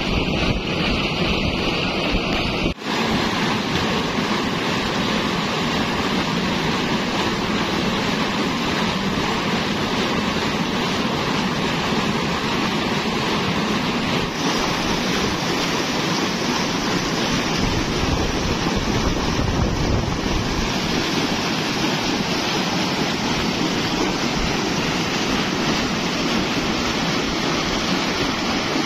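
Pumped water gushing out of a large outlet pipe and splashing into a concrete tank: a loud, steady rushing.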